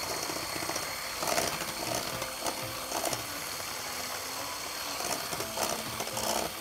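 Electric hand mixer running steadily, its beaters whisking cake batter in a metal bowl as powdered sugar is added gradually, with a few short sharp knocks spread through.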